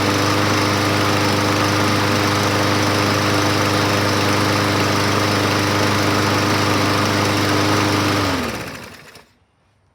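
Troy-Bilt TB110 push mower's single-cylinder overhead-valve engine running steadily, then shut off about eight seconds in, its pitch dropping as it winds down to a stop within about a second. It runs without shaking after its bent crankshaft was straightened and its sheared keyway repaired.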